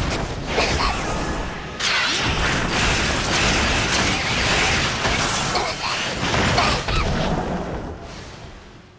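Layered anime battle sound effects: dense rushing, crackling noise with a few sudden hits, jumping louder about two seconds in and fading away over the last two seconds.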